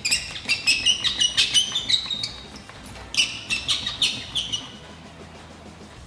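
Razor blade shaving excess cured resin flush off a repaired windscreen chip: quick, squeaky scrapes on the glass in two runs, the second starting about three seconds in.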